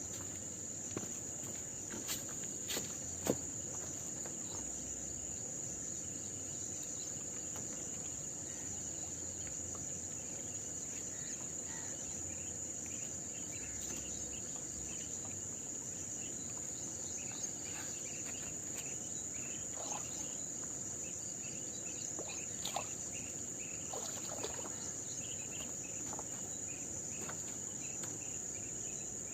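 Insects shrilling outdoors: one continuous, steady, high-pitched drone with no break. A few faint clicks are heard now and then.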